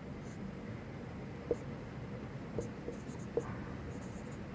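Marker pen writing on a whiteboard: faint scratching strokes with a few short taps of the tip against the board.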